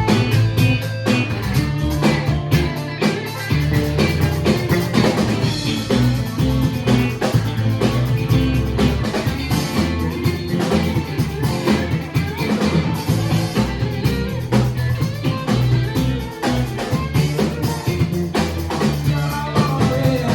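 Live band playing an instrumental passage with guitar and drum kit over a steady beat, with no singing.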